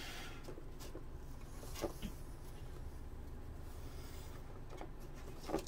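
Quiet handling of carbon fiber cloth as gloved hands press it into a resin-wetted boat hull, with a few faint soft ticks, about two seconds in and near the end, over a low steady hum.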